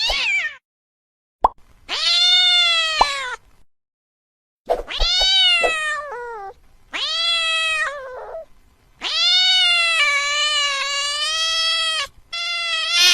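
Angry cat yowling: five long, drawn-out calls that rise and fall in pitch, with short silences between them. The fourth call is the longest, about three seconds.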